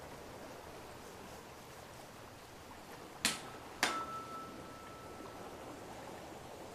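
Weighted therapy tuning forks struck twice in quick succession, about half a second apart, then one clear ringing tone that holds for about two seconds and fades out, over a faint steady hiss.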